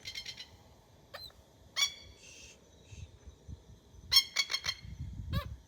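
Birds calling: short, harsh calls in small groups, the loudest a quick run of several about four seconds in.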